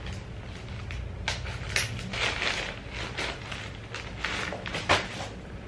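Newspaper wrapping on a book parcel rustling, crinkling and tearing as it is cut open with scissors, with a few sharp clicks.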